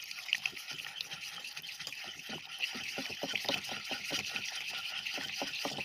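Slime being stirred with a little water in a bowl: a continuous run of small irregular scrapes and wet clicks against the bowl.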